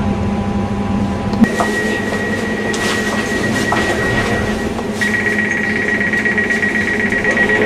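Class 345 train's door warning: a steady high tone while the passenger doors stand open at the platform, then from about five seconds in a louder rapid pulsing beep, the signal that the doors are about to close.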